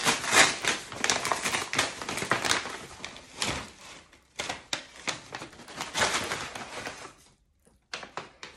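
Brown kraft packing paper crinkling and rustling in quick, crackly bursts as it is unwrapped, dying away about seven seconds in.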